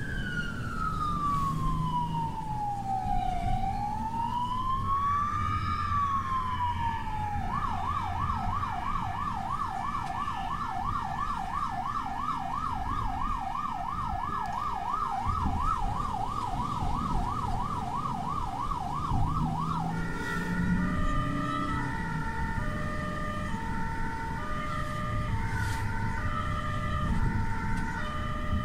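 Emergency-vehicle sirens in an ambulance convoy with police escort. A slow wail sweeps down and back up, switches to a fast yelp of several sweeps a second about seven seconds in, and near twenty seconds gives way to a two-tone hi-lo siren stepping between two pitches, over steady road and engine noise.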